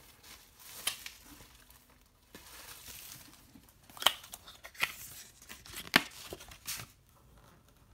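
Plastic shrink wrap being torn and peeled off a Blu-ray steelbook case: rustling and crinkling with several sharp crackles, the loudest about six seconds in.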